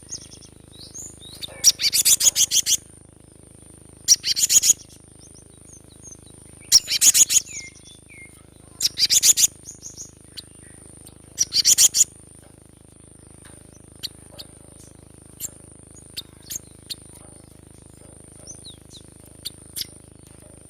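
Cinereous tit (gelatik batu) calling: five loud bursts of fast chattering notes, each about a second long and about two and a half seconds apart, then scattered single sharp chips in the second half. A faint steady high whine runs underneath.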